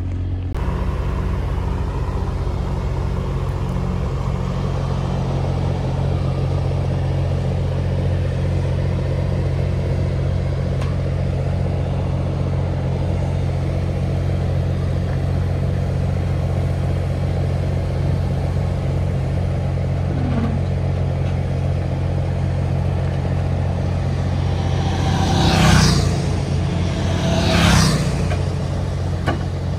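Tracked excavator's diesel engine running steadily as the machine is worked off a lowbed trailer. Two loud surges come a couple of seconds apart near the end.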